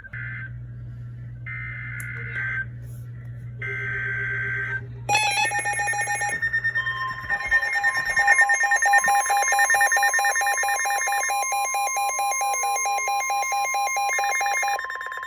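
Three Emergency Alert System SAME header data bursts, warbling digital tones of about a second each. About five seconds in, several overlapping alert tones take over: fast-pulsing Wireless Emergency Alert tones, joined shortly after by a steady weather-radio alarm tone. Together they announce a new severe thunderstorm warning.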